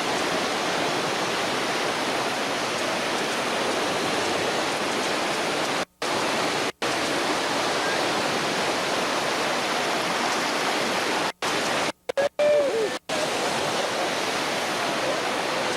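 Whitewater on the New River rushing steadily through a rapid. The sound cuts out abruptly for a split second several times, about six seconds in and again around eleven to thirteen seconds, like edits or tape dropouts.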